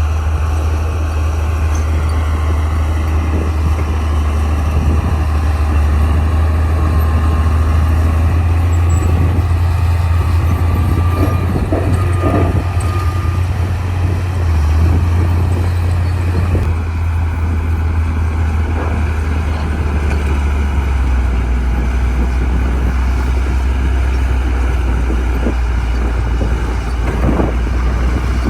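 Crawler bulldozer's diesel engine running steadily with a loud low drone, with a few short clanks about halfway through and again near the end.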